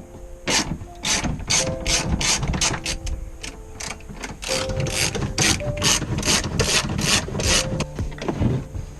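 Hand ratchet wrench clicking in repeated quick strokes, with a short pause partway through, as bolts are backed out to remove the air-conditioning components.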